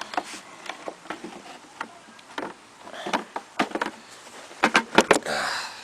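Lawnmower engine shroud being handled and fitted: scattered clicks and knocks, a quick run of sharper knocks late on, then a short scrape.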